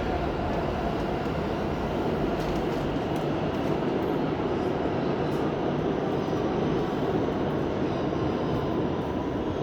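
New York City subway train running through the station: a steady, loud rumble of wheels on rails.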